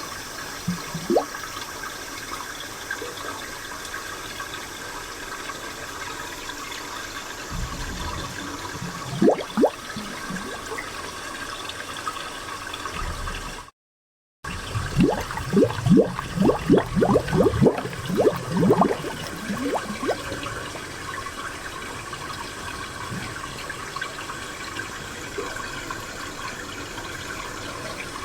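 Spring water running and trickling steadily, with bursts of gurgling, bubbling plops, thickest a little past the middle. The sound cuts out completely for about half a second just before that burst.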